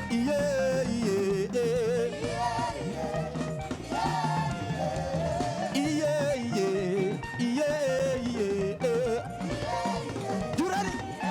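Live African gospel praise music: a band playing with singing carrying a wavering, ornamented melody.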